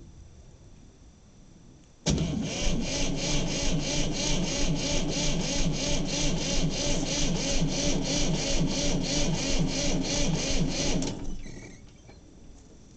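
Cold diesel tractor engine being cranked over by the starter motor for about nine seconds, with even compression pulses about three and a half times a second. It never catches, and the cranking stops near the end. The owner suspects a bad glow plug relay.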